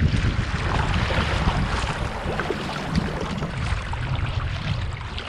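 Paddle strokes splashing and choppy waves lapping against a folding touring kayak's hull, with wind noise on the microphone.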